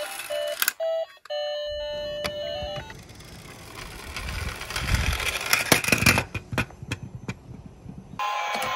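A toy car rolling down a wooden plank slope: its small wheels make a rumble that builds and is loudest about five to six seconds in, then a run of sharp clatters as a toy car tumbles and flips over. A short electronic jingle of stepped beeps plays near the start.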